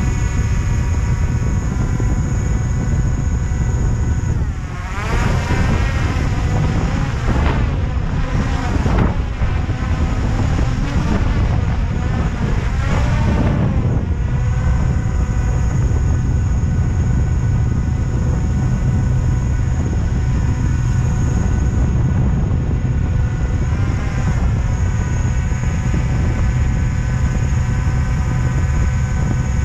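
Drone's motors and propellers whining steadily over a heavy low rumble. The pitch swoops up and down several times between about four and fourteen seconds in as the motors change speed, then settles steady again.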